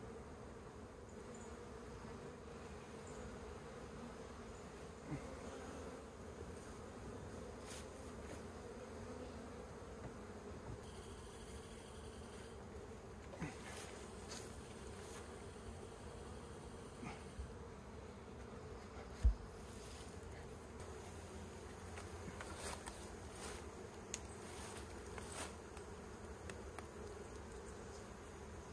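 A swarm of honey bees buzzing steadily around a log hive as they are tipped into it from a box. A few light knocks, and one dull thump about two thirds of the way through.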